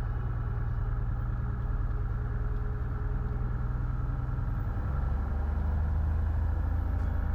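Cessna 172H's six-cylinder Continental O-300 engine running at low taxi power, heard inside the cabin; the engine note shifts slightly about five seconds in.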